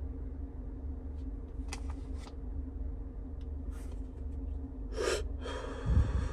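A held hit from a disposable vape pen blown out: a short sharp breath about five seconds in, then a long exhale, with a dull thud near the end. A steady low hum runs underneath.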